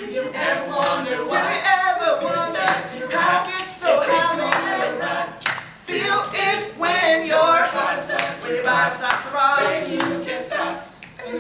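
A group of boys' voices singing a boy-band pop song live, without instrumental backing, with hand claps keeping the beat.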